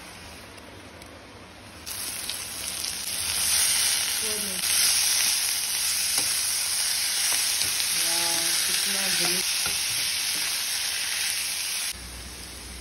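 Eri silkworm pupae frying in hot oil with onion, garlic and green chilli in an iron kadai, stirred with a metal spatula. The sizzle starts suddenly and loud about two seconds in and cuts off near the end.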